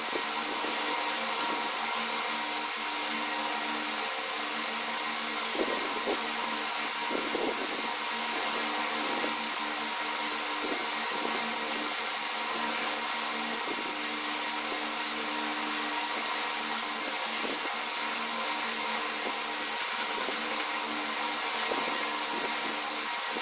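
Steady machine hum over a constant hiss, with a few faint short knocks or rustles about six to eight seconds in.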